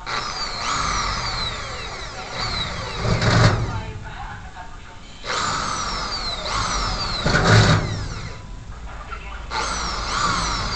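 Power drill boring into a spandrel ceiling panel in three runs of a few seconds each, the first two ending in a louder surge about three and a half and seven and a half seconds in.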